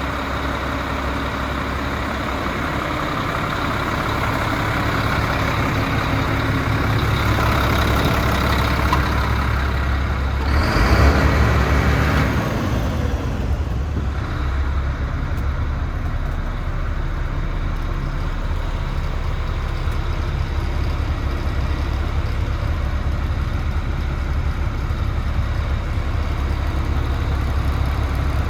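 DAF CF75 truck's 310 bhp turbocharged Euro 5 diesel engine idling steadily, with a louder rush of hissing noise lasting about two seconds near the middle.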